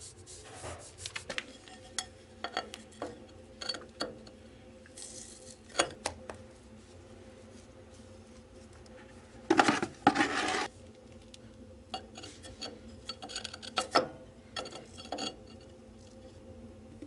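Scattered clinks, taps and scrapes of hard objects being handled around a metal heating pipe and a tiled concrete step, with one longer scrape about ten seconds in.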